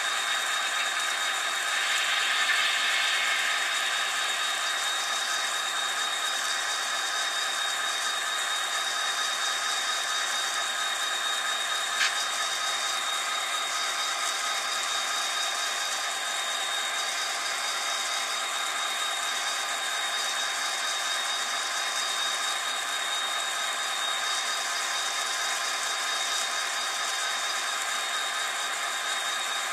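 HO-scale model freight train running past on its track: a steady mechanical running noise with a thin, high, steady whine, and a single sharp click about twelve seconds in.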